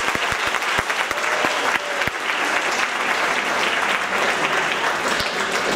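Theatre audience applauding steadily at the end of a musical number.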